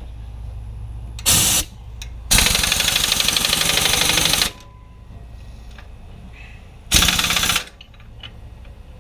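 Impact wrench hammering on a seized bolt in three bursts: a short one about a second in, a longer one of about two seconds, and another short one near the end. The bolt, rusted through the water pump and timing cover into the engine block, does not break loose.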